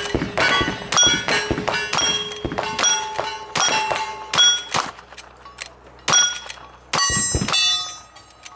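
Rapid gunfire at cowboy action shooting steel targets: shots about every half second, each followed by the ringing clang of a hit steel plate. After about five seconds the shots slow to a few more, spaced further apart.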